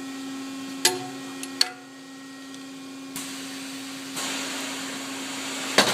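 Rebuilt H&H flash butt welder standing after a weld: a steady machine hum, with two sharp clicks about a second in and a hiss that comes in about three seconds in and grows, then a loud click near the end.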